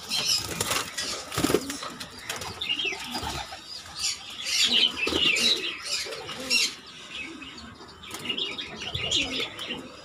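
Domestic pigeons' wings flapping in repeated bursts of quick wingbeats as the birds take off and land, busiest in the middle and near the end, with some soft cooing.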